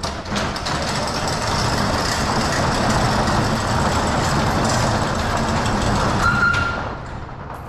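Corrugated steel roll-up shop door rolling down, worked by its hand chain hoist: a loud, steady metal rattle of the curtain and clinking chain. A brief squeal near the end as the door slows, and the rattle fades away about seven seconds in.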